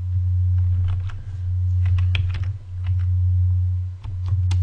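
Computer keyboard typing: a scattered handful of separate keystrokes as a short file name is typed. Under it runs a steady low electrical hum.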